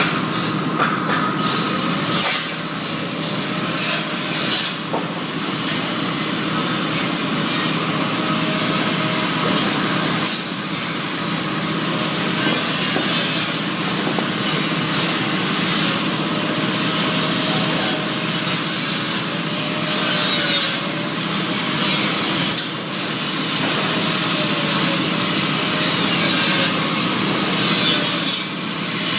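Electric arc welding: a steady hissing, crackling arc with frequent irregular louder pops, over a steady low hum.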